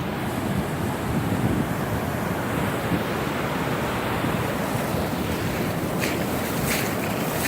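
Ocean surf breaking and washing in, mixed with wind noise on the microphone and a few short crackles near the end.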